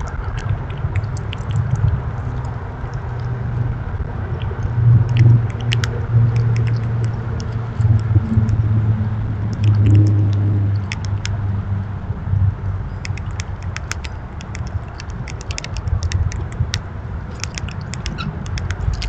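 A squirrel eating close to the microphone: sharp crunching clicks, scattered at first and coming thick and fast in the last third, over a steady low rumble.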